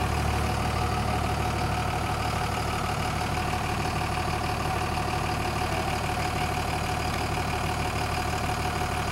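Vehicle engine idling: a steady low hum with a faint steady tone above it.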